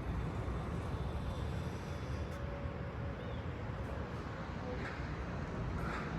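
Steady low rumble of distant city traffic, with a few faint brief sounds, one a small chirp, about halfway through.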